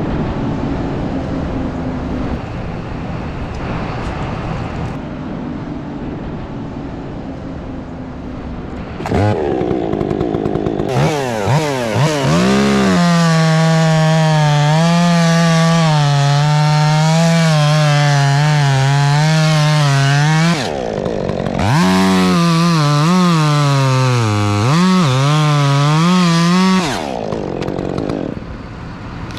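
Steady engine noise, then a chainsaw revs up about nine seconds in and runs at full throttle cutting through an elm limb. The cut comes in two long stretches with a brief pause, its pitch sagging and wavering under load.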